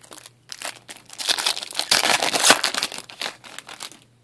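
Foil wrapper of a 2013-14 Upper Deck Team Canada hockey card pack crinkling as it is handled and opened, with a few short crackles first and the crinkling loudest about two seconds in.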